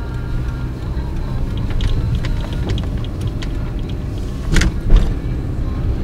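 Car engine and road noise heard from inside the cabin while driving, a steady low rumble. Two sharp knocks about four and a half seconds in, close together, stand out as the loudest sounds.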